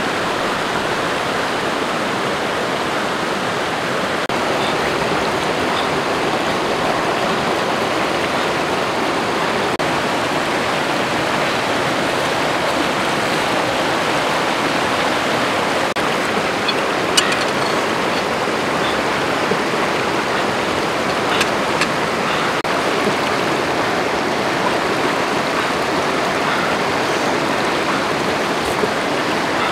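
River rapids rushing over rocks: a steady, loud flow of water, with a few faint clicks about halfway through and near the end.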